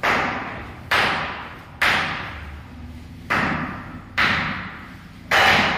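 Six sharp knocks of masonry work on a concrete floor, mostly about a second apart, each trailing off over most of a second.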